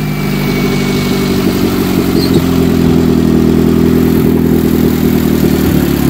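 Car engine idling steadily, just after being started.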